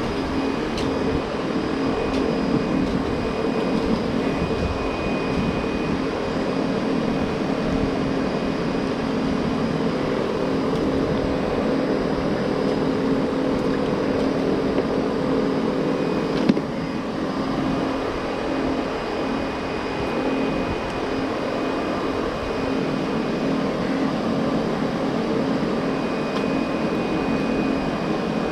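A steady mechanical hum with several held tones, and one sharp click about sixteen seconds in.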